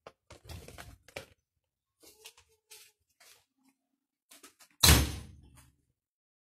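A few faint knocks and rustles, then one loud thud about five seconds in with a short boomy tail.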